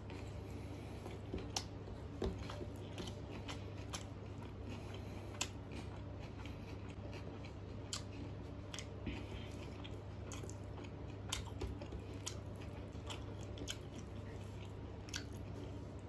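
Close-up eating sounds of a person chewing mouthfuls of rice and mutter paneer curry eaten by hand. Sharp, wet mouth clicks and smacks come at irregular intervals.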